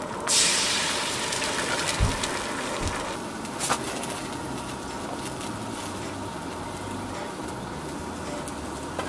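Eggs frying on a camping griddle: a loud sizzle starts suddenly just after the start and fades over about a second. Then come two dull knocks and a sharp click, over steady background noise.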